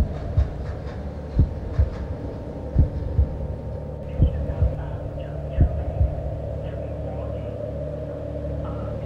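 Footsteps trudging through snow, heard as pairs of short low thumps about every second and a half over a steady hum. The thumps stop about six seconds in.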